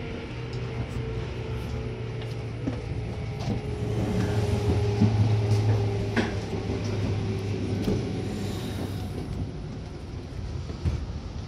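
Seibu Red Arrow limited express train running, heard from inside the passenger car: a steady low hum and rumble with a few sharp clicks, growing louder around the middle before easing off.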